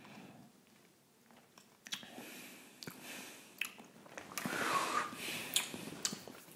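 Close mouth sounds of a man tasting neat rum: faint smacks and clicks of the lips and tongue, with breathy noise as he works the spirit around his mouth and breathes out, starting about two seconds in.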